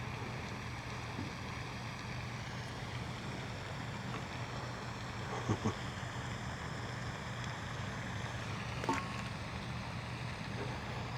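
Steady low background noise with a couple of brief knocks, a quick double one about halfway through and a single one later.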